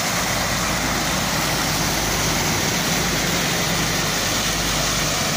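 Water cascading down the tiers of a stone fountain and splashing into its basin, a steady rush, with a low hum of road traffic underneath.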